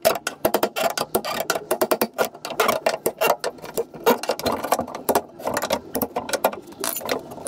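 Hammer tapping a flat pry bar wedged into the joint of a wooden kitchen cabinet, prying its particleboard side panel off. The knocks come in a fast, irregular run, several a second.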